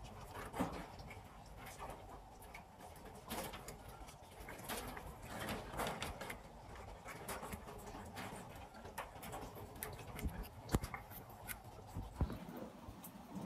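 Caged minks moving and jumping up and down in wire-mesh cages: irregular knocks and rattles of the wire, with the sharpest knocks near the end.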